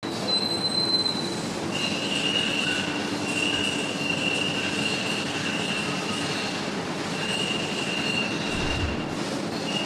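Factory machine-shop noise from a running CNC crankshaft grinding machine and machining line: a steady mechanical hum overlaid with high-pitched squealing whines that start and stop, with a short low thud near the end.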